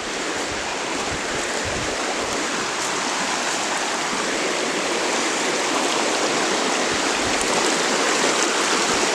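Steady rushing of running water, starting abruptly and holding even throughout.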